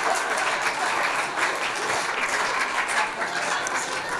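Audience applauding after a punchline, a dense patter of many hands clapping that thins out near the end.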